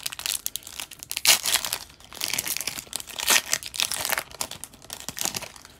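Foil hockey card pack torn open and its wrapper crinkled by hand, in a run of irregular rustling bursts with the loudest tear about a second in and another about three seconds in.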